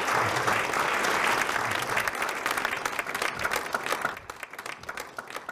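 Audience applauding: dense clapping that thins out about four seconds in to a few scattered claps and dies away.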